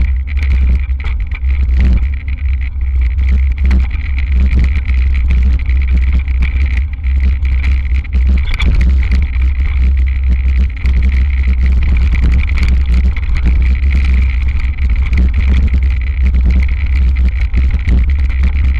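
Hardtail mountain bike descending a dirt trail, heard from its handlebars: a heavy, steady rumble of wind and trail vibration with constant rattling and knocking as the bike bounces over the ground, and a steady high whine above it.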